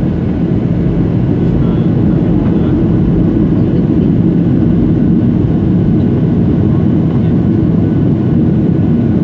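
Steady cabin noise of a jet airliner descending on approach: the drone of its engines and the rush of air past the fuselage, heard from inside the cabin near the wing. It is loud and even throughout, mostly low in pitch.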